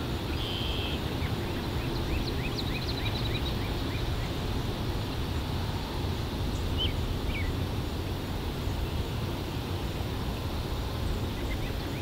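Birds chirping over a steady low rumble of outdoor ambience, with a quick run of short chirps about two seconds in and a couple of single calls around seven seconds.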